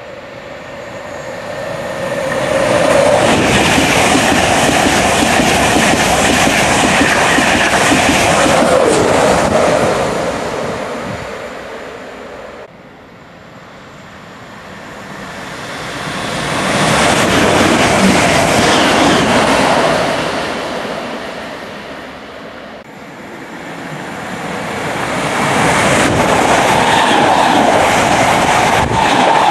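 Trains passing through a station one after another: three separate passes, each building up to loud wheel-on-rail rumble and clatter and then fading. The last is a First Capital Connect electric multiple unit running close alongside.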